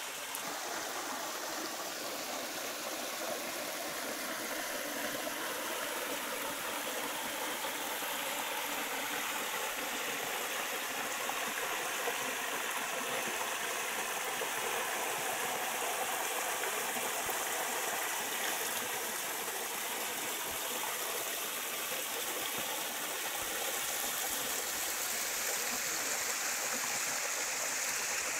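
Small rocky stream running steadily, its water pouring over a little cascade into a pool.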